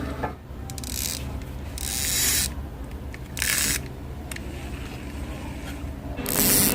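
Shimano baitcasting reel's drag clicker buzzing in four short bursts of rapid high-pitched clicks as the drag slips.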